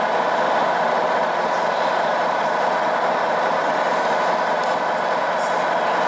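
A radio-controlled model Scania truck's onboard sound module running a steady diesel truck engine sound through a small speaker, with almost no deep bass.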